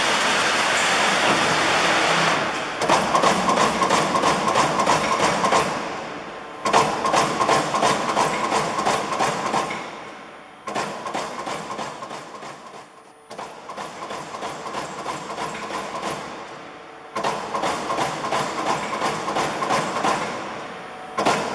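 LVD Delta 1250 LB CNC turret punch press punching sheet metal. A steady rushing noise for the first couple of seconds gives way to rapid-fire runs of punch strokes, each run lasting three to four seconds with short pauses between them as the sheet is repositioned.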